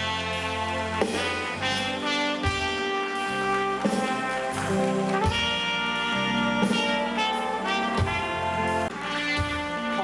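Instrumental music: held chords over sustained bass notes, changing every second or so.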